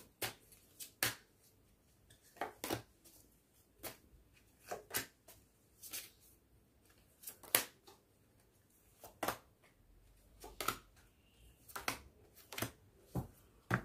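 Oracle cards being shuffled and dealt onto a spread: a string of sharp, irregular card snaps and flicks.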